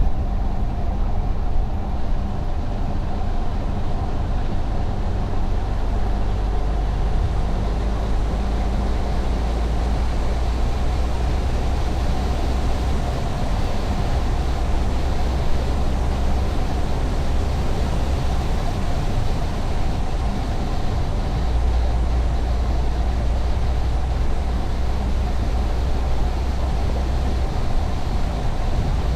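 A car driving along a highway, with a steady low road and engine rumble.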